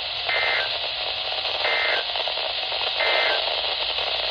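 NOAA Weather Radio end-of-message code: three short two-tone digital data bursts, about 1.3 s apart, over a steady radio hiss. They mark the end of the weekly test broadcast.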